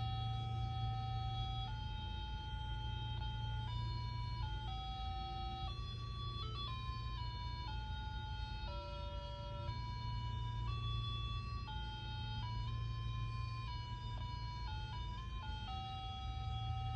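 Talking pocket calculator playing one of its built-in electronic melodies: a simple tune of beeping notes stepping up and down in pitch, over a steady low hum.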